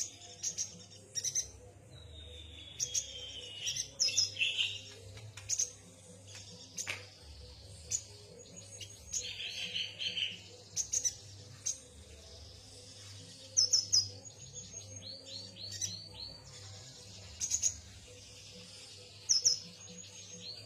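Yuhina chirping: scattered short, high chirps, with a falling whistle early on and quick runs of four or five notes about nine and fourteen seconds in.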